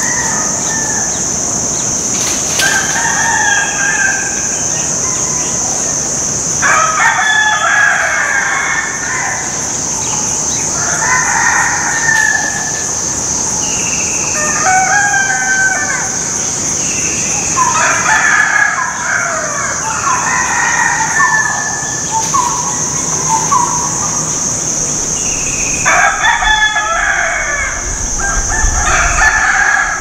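Roosters crowing every few seconds over a steady, high-pitched buzz of insects.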